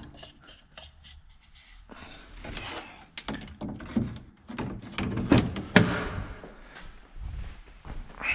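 A handful of sharp knocks and clunks from a John Deere tractor's engine side panel being handled, the loudest a little past the middle.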